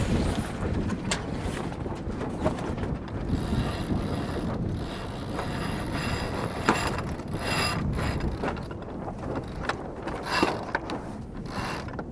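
Sailboat genoa sheet winch being cranked with a winch handle to haul the genoa in after a tack, its ratchet clicking in irregular runs over wind noise.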